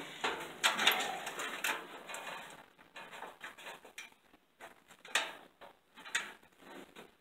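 Light metal clicks and rattles of nuts, bolts and hand tools being handled and fitted. A dense cluster comes in the first couple of seconds, then scattered single clicks.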